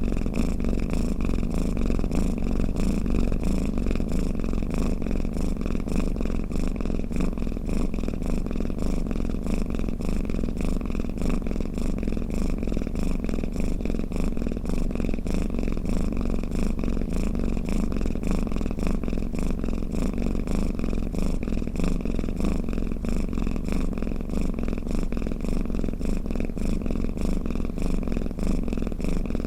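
Domestic cat purring, a steady unbroken purr with a fast even pulse.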